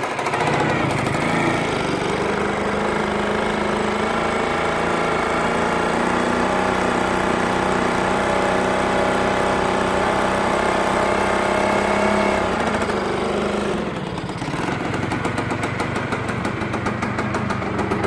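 Old Bajaj Super scooter's two-stroke engine running at raised revs under load, turning a rope winch drum fitted in place of its rear wheel to hoist a load. About thirteen seconds in, the revs fall and it settles to a lower, steady run.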